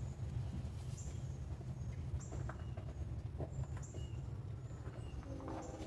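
Short, faint bird chirps scattered over a steady low background rumble, with a couple of light clicks.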